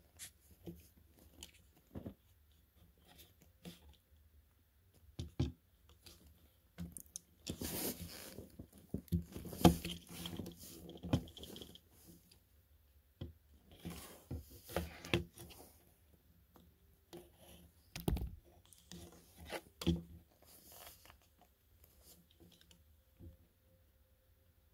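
Irregular clicks, taps and crinkly rustling of a plastic Transformers action figure being handled and posed on a wooden surface. The rustling and clicking come thickest about eight to eleven seconds in, with a sharp knock about eighteen seconds in.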